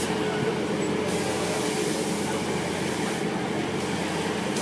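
Amusement-park helicopter ride running: a steady mechanical hum with an even hiss over it, near the end of the ride's cycle.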